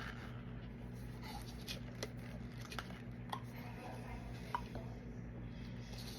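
Faint, scattered light clicks and taps from handling a mold and cured resin piece, over a steady low hum.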